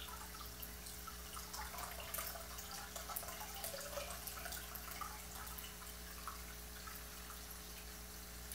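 Aquarium water splashing and gurgling as a battery-operated gravel siphon draws water and a hand moves through the plants. The water sounds are busiest in the middle few seconds, over a steady low hum.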